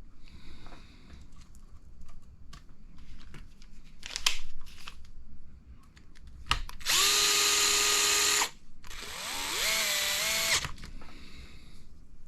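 Cordless electric screwdriver driving small button-head screws into an RC buggy's front end, in two runs of a steady motor whine. The second run rises at the start and drops in pitch partway as the screw tightens. Small clicks of parts being handled come before.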